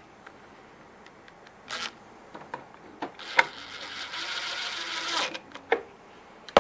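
DeWalt 20V cordless impact driver running for about two seconds, about halfway through, as it drives a screw into a printer's sheet-metal side panel. Clicks and taps of the screw and tool being handled come before and after.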